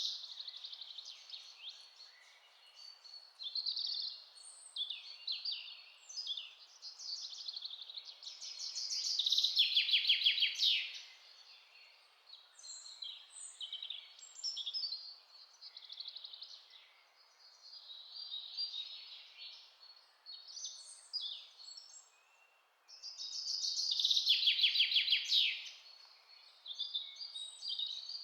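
Songbirds singing and chirping, with a louder rapid trill about nine seconds in and again near the end, over a faint steady hiss.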